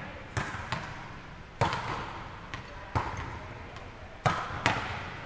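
Volleyballs being hit and smacking the hardwood gym floor, about six sharp, irregular smacks, each echoing through the large hall.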